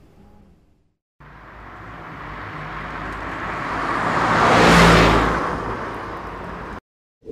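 A car passing by on the road, its tyre and engine noise swelling as it approaches, peaking about five seconds in, then fading as it goes by before breaking off abruptly.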